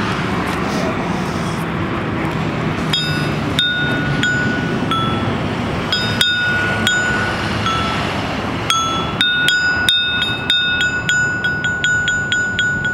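Rusty railroad steel plates laid on wood and struck with a metal rod as a found-object xylophone, each strike ringing with a clear note, the plates giving several different pitches. A few single notes start about three seconds in, then a quick run of strikes, several a second, near the end, over steady background noise.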